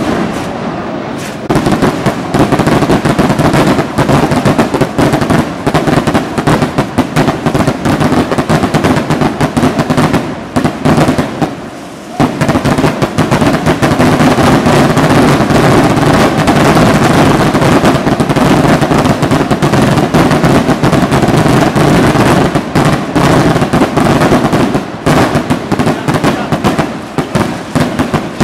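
Loud, dense barrage of fireworks: rapid, overlapping bangs and crackling from aerial shells and rockets. It starts about a second and a half in, thins out briefly about twelve seconds in, then resumes just as densely.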